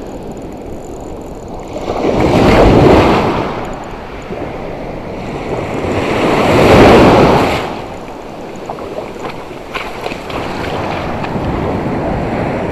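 Surf breaking on a sand-and-shingle beach, with two waves crashing loudly about two and six and a half seconds in, and the wash running back between them.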